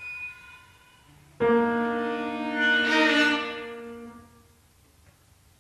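Chamber quintet of flute, clarinet, violin, cello and piano playing contemporary concert music. After faint held notes, a loud sustained chord enters suddenly about a second and a half in, swells, then dies away about three seconds later.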